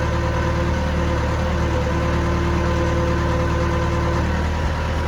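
Caterpillar 426 Series II backhoe's diesel engine running steadily while the hydraulics are worked to fill the lines of the freshly rebuilt boom cylinder; a higher tone in the sound drops away about four seconds in.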